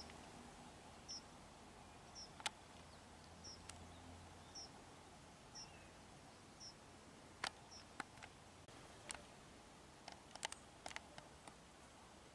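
Near silence, in which a small bird repeats one short high chirp about once a second for the first seven seconds. A few faint clicks and ticks are scattered through the rest.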